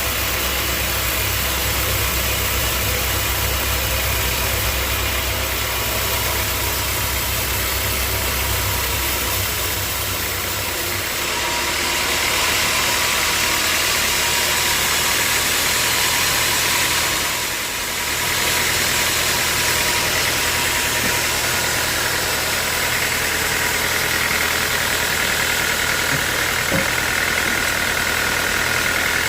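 Sawmill machinery running steadily. Its low hum changes about eleven seconds in, and the sound dips briefly near eighteen seconds.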